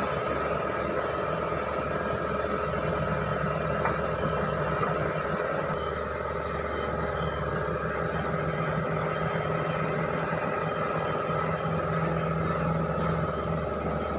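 Hitachi Zaxis 210-5G excavator's diesel engine running steadily as the machine turns on its newly rejoined tracks, with a constant hum throughout.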